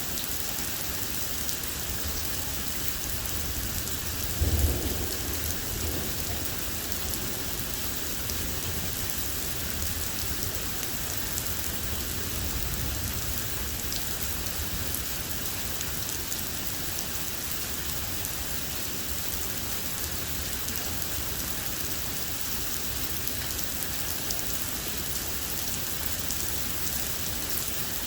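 Rain falling steadily in a thunderstorm. A sharp thunderclap comes about four and a half seconds in, and a fainter rumble of thunder follows some eight seconds later.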